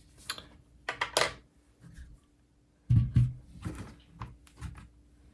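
Keystrokes on a custom Bakeneko 60 mechanical keyboard fitted with Gateron milky yellow linear switches: a handful of irregular key clacks, with a deeper thud about three seconds in.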